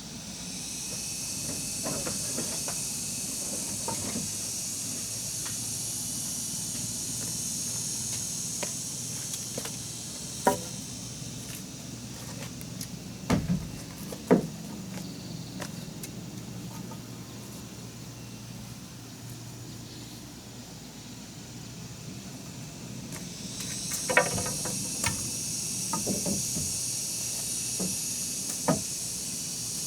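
A high, steady buzzing of insects that stops about ten seconds in and starts again near the end, with scattered sharp knocks, as of work on wood, around the middle and in the last few seconds.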